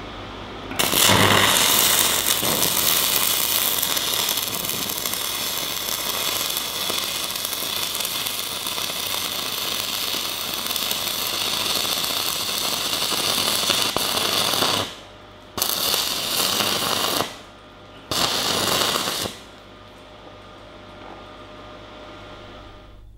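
Welding arc from a Decapower SYNMIG-200 multi-process welder crackling steadily for about fourteen seconds, then striking again in two shorter bursts of a second or two each. A lower steady hum, the machine's cooling fan, runs underneath and remains after the arc stops.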